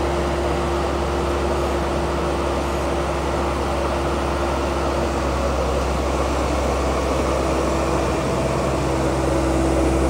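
Iveco diesel engine of a tracked digger derrick running steadily while its hydraulics raise the boom, with a steady whine over the engine's low hum.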